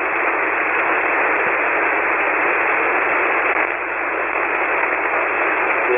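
Steady hiss of band noise from a single-sideband ham radio receiver, with no station transmitting, cut to a narrow telephone-like range by the receiver's filter.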